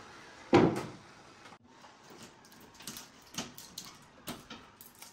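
A single sharp knock about half a second in, like a cupboard or door shutting, then scattered light clicks, taps and rustles as a hanging fabric banner on a cord and other decorations are unhooked from kitchen cabinets.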